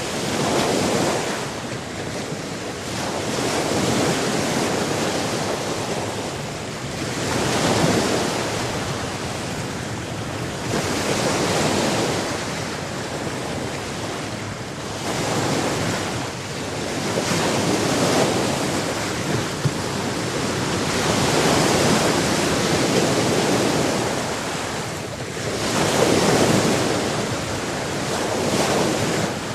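Sea waves washing ashore, the surf swelling and falling back every three to four seconds.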